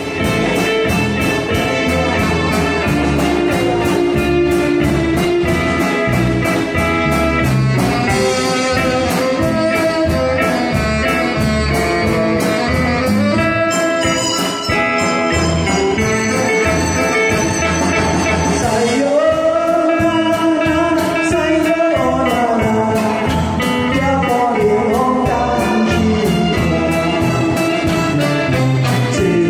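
Band playing the instrumental introduction of a song, with drums keeping a steady beat under a melody line.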